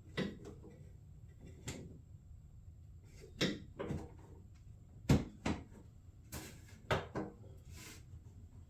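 Irregular light clicks and knocks from car trim parts and their fasteners being handled and fitted by hand, about ten over the stretch, the sharpest knock a little past five seconds in.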